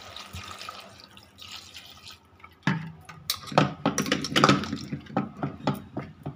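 Water splashing and dripping in a steel pressure cooker pot: a faint trickle at first, then from about three seconds in a quick run of sharp splashes, drips and light metal clinks.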